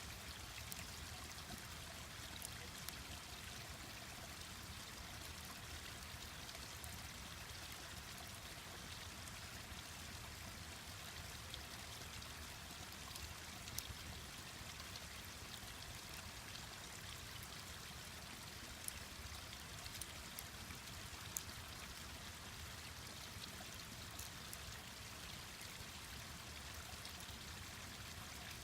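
Mountain stream rushing steadily, with a few sharp, scattered crackles and pops from a wood campfire.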